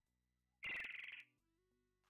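Alexandrine parakeet giving one loud call, about half a second long, a little past the middle.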